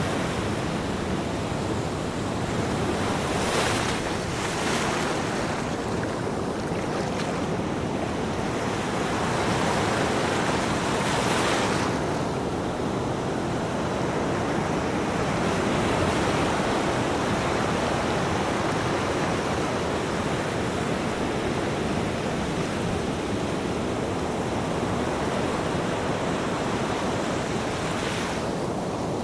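Ocean waves breaking on a beach: a continuous surf wash with brighter hissing swells as waves break, about 4 and 5 seconds in, strongest around 11 to 12 seconds, and again near the end.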